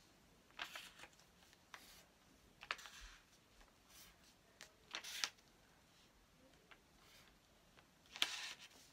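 Felt-tip markers scratching on paper in short strokes: about four separate swipes a second or two apart, faint.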